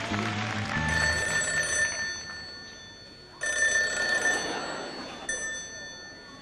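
A bell ringing twice, about two and a half seconds apart, each ring dying away slowly. Background music is heard at the start.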